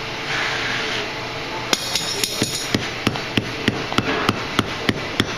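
Hand hammer striking white-hot steel on an anvil, setting a forge weld in the scarfed joint of a tong rein. A quick few light taps start about a second and a half in, then steady blows about three a second.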